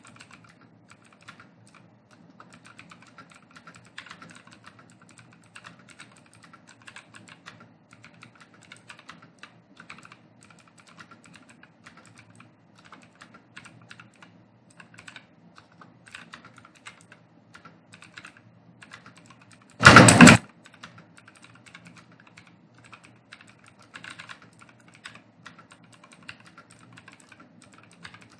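Computer keyboard being typed on continuously, a fast irregular run of key clicks. About two-thirds of the way through, one loud burst about half a second long stands out well above the typing.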